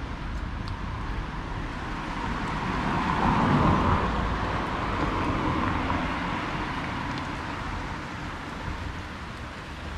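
A car driving past on the road, its tyre and engine noise swelling to a peak about four seconds in, then fading away.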